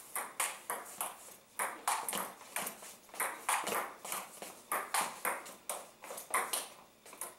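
Table tennis rally: the ball clicking sharply off the paddles and bouncing on the table, about three clicks a second in a steady back-and-forth exchange.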